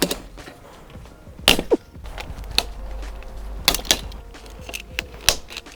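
Plastic trim clips popping as a body trim strip is pried off a Volvo 850R's quarter panel: a handful of sharp snaps a second or so apart.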